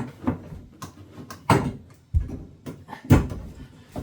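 Plastic JG Speedfit push-fit T-piece being worked onto a water pipe by hand: a string of irregular knocks and clicks, the heaviest knock about three seconds in.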